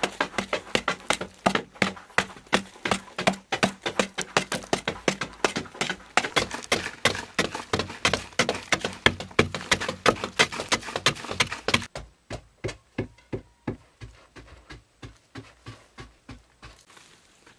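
Hand digging tools striking hard-packed earth over and over, about three chopping blows a second. About twelve seconds in the blows become fewer and quieter.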